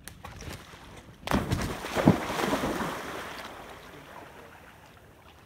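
A Texas Heeler dog jumps into a pond: a small splash right at the start, then a big splash about a second in and a rush of churning, sloshing water that fades over the next two seconds as he swims.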